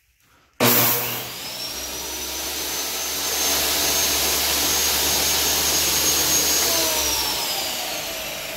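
Kobalt 15-amp table saw switched on about half a second in: the motor starts with a sudden burst and whines up to speed, then runs steadily with a high whine while drawing power from a 12-volt pure sine inverter. Near the end it is switched off, and the whine falls in pitch as the blade spins down.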